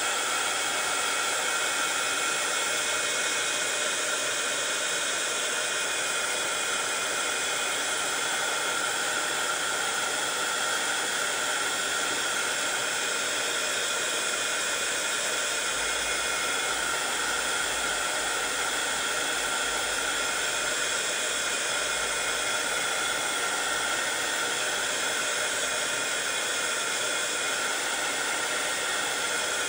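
Handheld craft heat gun running steadily, a rush of air with a steady whine in its fan, drying freshly applied paint.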